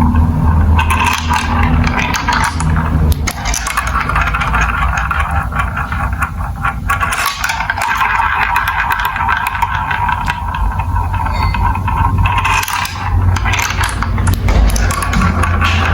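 Marbles rolling along plastic marble run tracks: a continuous rolling rumble with frequent clicks and clatters as the marbles hit the track pieces.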